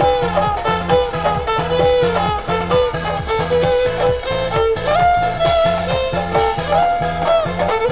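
Upbeat swing-style background music with a bouncing bass line at about two notes a second and a brass-like melody on top.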